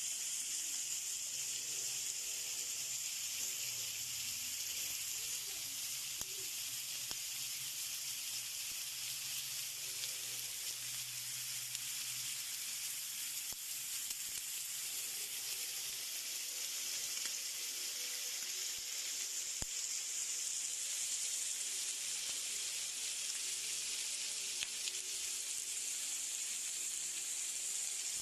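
Marinated pork belly sizzling steadily on a hot electric grill plate.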